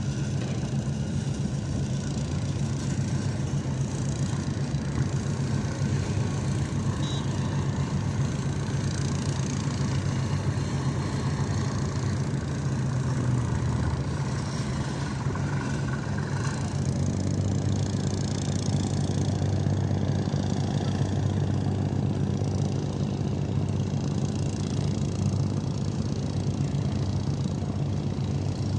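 A large engine running steadily, a low even hum that holds through the whole stretch, under a constant hiss.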